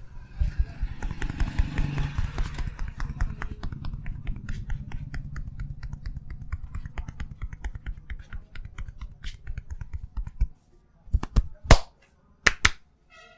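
Barber's hands rapidly tapping and patting a customer's head in a fast, steady rhythm during a head massage. The tapping stops about ten seconds in, followed by a few louder, sharper hand strikes.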